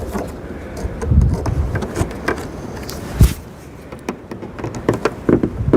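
Handling noise from fitting a plastic bug deflector to a truck hood: scattered knocks, clicks and low thumps, with one sharp knock about three seconds in.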